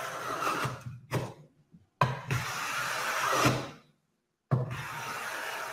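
Smoothing plane set to a very fine cut, planing the edge of a board and taking super fine shavings. Each stroke opens with a knock as the plane lands on the wood, then a steady hiss of the iron cutting. One stroke ends just under a second in, a full stroke follows about two seconds in, and another begins near the end.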